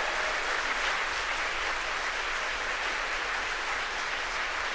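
Crowd cheering and applauding, a steady wash of clapping and voices, celebrating the confirmed stage separation.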